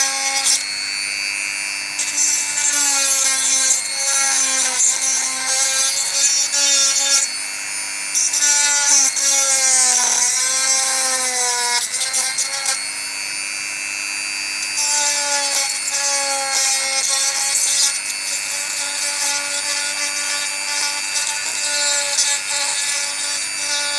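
Small handheld electric rotary tool running with a steady whine and a grinding hiss, its pitch sagging and recovering several times as it bears on the part, most deeply about ten seconds in.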